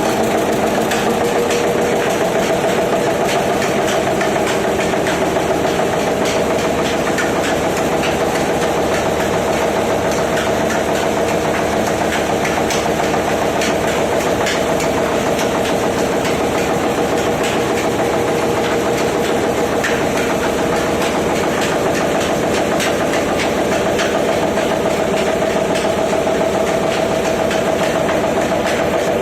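A machine running steadily with a continuous hum and a fast, dense clatter of small ticks that does not change.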